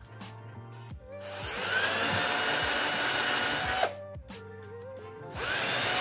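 Electric drill boring small pilot holes into a wooden board for screws. It spins up about a second in, runs steadily for about three seconds and stops, then starts again near the end.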